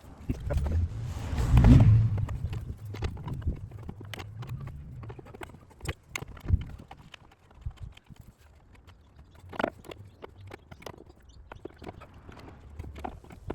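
Irregular clicks and knocks of hands and tools working on a plastic engine airbox, with a louder low rumble and knock about two seconds in.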